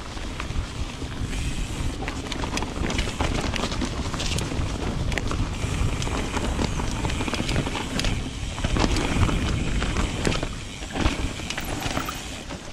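Mountain bike ridden down a leaf-covered dirt trail: wind buffeting the microphone with a steady low rumble, tyres rolling over leaves and dirt, and frequent knocks and rattles from the bike as it goes over bumps and roots.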